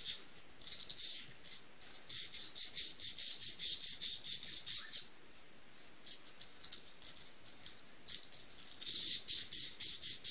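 80-grit sandpaper rubbed by hand around the inside of a nitro buggy's clutch bell in quick back-and-forth strokes, about four a second, fainter for a few seconds in the middle. It is scouring off the aluminium residue left by the clutch shoes.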